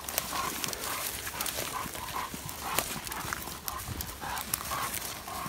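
A hog dog panting hard in quick breaths, about two or three a second, with footsteps and rustling through dry grass and brush.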